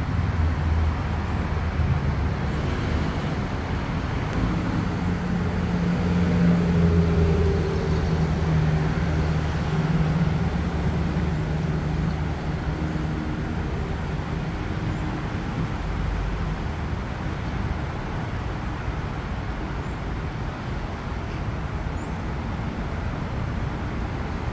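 Engine of a Hitachi diesel-electric locomotive running under load: a low droning rumble that swells loudest around seven seconds in, then eases to a steadier rumble.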